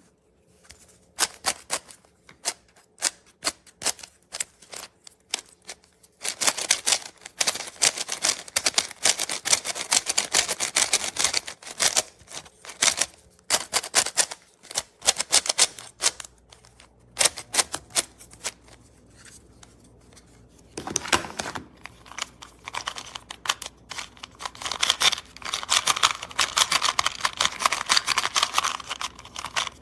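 Plastic speed cubes being turned by hand: rapid, dense clicking of the layers snapping round, in stretches with short pauses.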